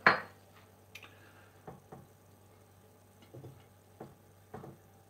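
A sharp clatter of kitchenware at the start, then a few faint light taps and rustles as salad leaves are laid onto a ceramic plate.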